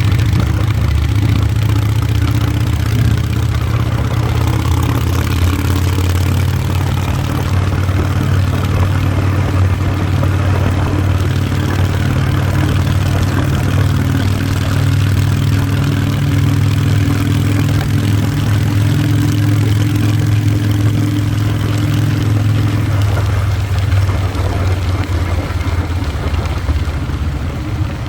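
Motor vehicle engine running at a steady speed under way, with road and wind noise; about 23 seconds in the engine note drops and eases off.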